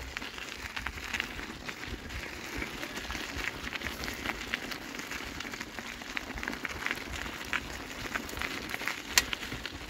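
Footsteps crunching on a dirt road at a walking pace, as a series of irregular short crackles, with one sharper click about nine seconds in.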